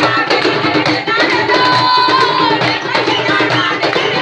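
Hand drums beaten in a quick, steady rhythm, with voices singing along.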